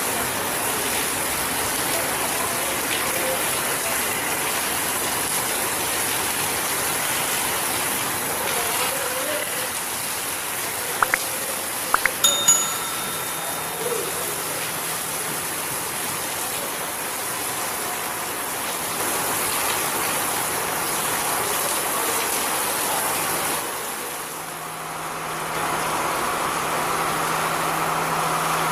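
Heavy rain pouring steadily, with a brief bell-like ring about halfway through. The low engine hum of a Class S14A diesel multiple unit comes in and grows louder near the end as it approaches.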